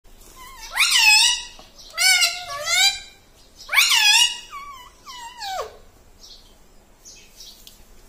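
Indian ringneck parakeet vocalizing: three loud, high, drawn-out calls whose pitch slides up and down, the last one about four seconds in ending in a falling glide.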